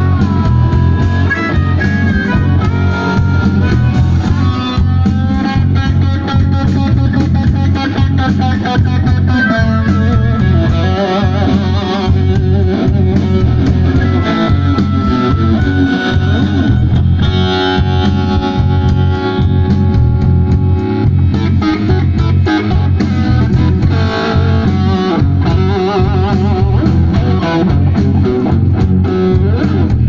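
Live blues band playing: harmonica, amplified through the vocal microphone, plays bending lead lines over electric guitar and drums with a steady beat.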